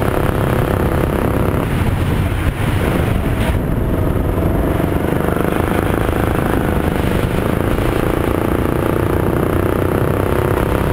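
Rental kart's single-cylinder four-stroke engine (Yamaha MZ200) running hard under the driver on a lap. Its pitch drops briefly about two seconds in, then climbs steadily as the kart accelerates.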